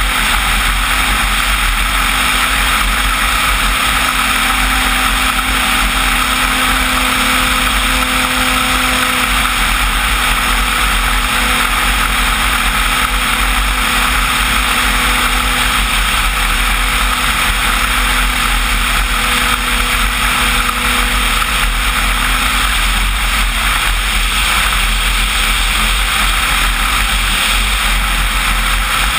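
Steady rush of airflow and propeller noise heard from a camera mounted on a flying radio-controlled Cessna 185 float-plane model, with a faint steady motor tone under it.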